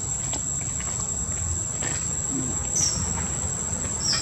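Steady high-pitched drone of insects over a low rumble, with two short high chirps, one about three seconds in and one near the end.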